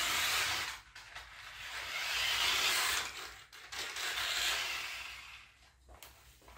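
Toy-grade New Bright radio-controlled car's small electric motor and drivetrain running in several surges of a second or two as the car drives about on a wooden floor, dying away near the end. The car is underpowered, running on 5 V from a power bank instead of the roughly 9 V it was made for.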